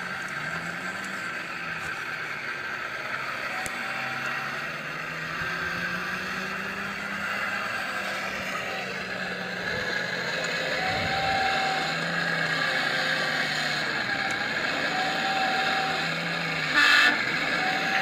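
Radio-controlled hydraulic model excavator (Liebherr R 944 style) working: a steady pump-and-motor whine with a low engine hum that rises and falls as it digs and loads. A few brief high tones come and go, and a short loud burst of noise comes near the end.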